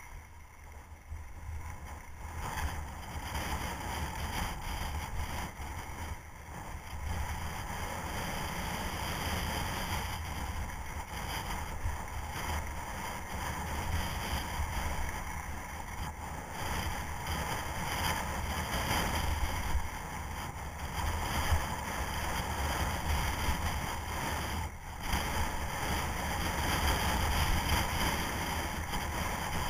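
Wind rushing over a body-worn camera's microphone while skiing downhill, with skis sliding and carving on packed snow; the noise grows louder toward the end as speed builds.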